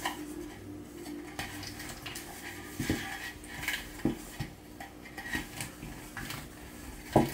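A hand rubbing oil around the inside of an aluminium bundt pan, with a few light metallic knocks as the pan shifts on the table.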